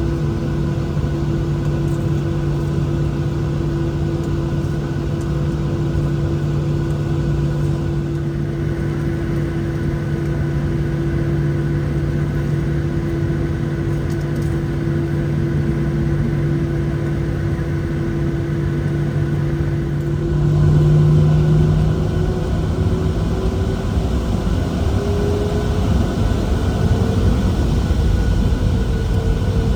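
Cabin sound of a Boeing 737-700's CFM56 turbofan engines at idle: a steady hum and whine over a low rumble. About two-thirds of the way through, the engine whine rises in pitch as thrust is added to get the jet moving on the taxi.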